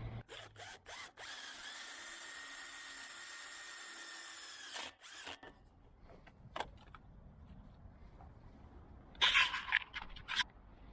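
Power drill driving screws: three short trigger blips, then a steady whine for about four seconds that winds down as it stops. Near the end, a louder, rough burst in two parts.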